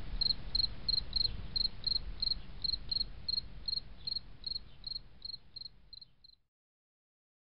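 Cricket chirping: a high chirp repeating about three times a second over a low rumble, growing fainter and stopping about six seconds in.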